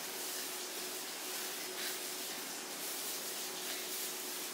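Faint rustling of a small artificial Christmas tree's branches as they are bent and fluffed by hand, over a steady hiss and a faint low hum.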